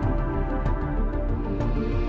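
Background music: sustained chords over a low, repeating beat.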